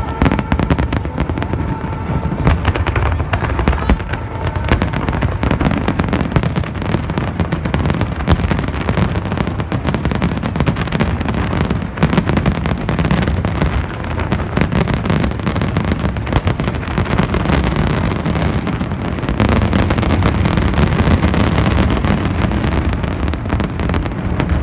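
Fireworks display: a dense, unbroken barrage of bangs and crackles, growing a little louder about twenty seconds in.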